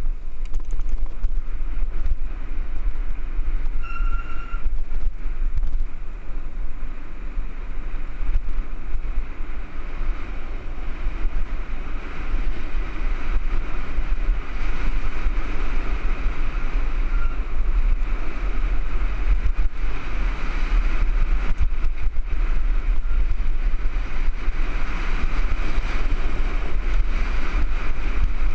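Wind buffeting the microphone of a camera on a mountain bike riding fast over a dirt fire road, with steady tyre and rolling noise. A brief high-pitched squeal about four seconds in.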